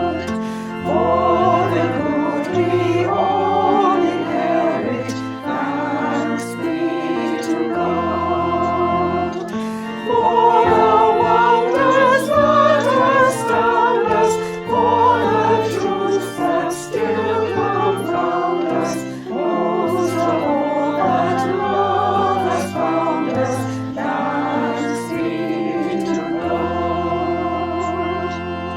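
Choir singing a hymn over an instrumental accompaniment with long-held bass notes.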